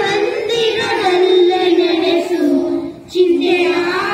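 Children's voices singing a devotional prayer song together in long, held notes, with a short pause for breath about three seconds in.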